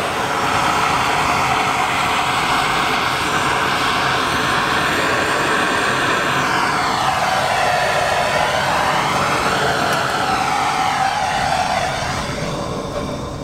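Handheld gas torch flame blowing with a steady rushing hiss while it heats molten silver during the pour. Its tone sweeps slowly for a few seconds midway as the flame is moved, and the sound dies away near the end.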